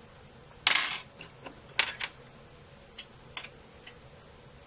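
A short scratchy scrape about a second in, then a sharp click and a few fainter ticks, from the small plastic and metal parts of an opened third-generation iPod being handled by hand.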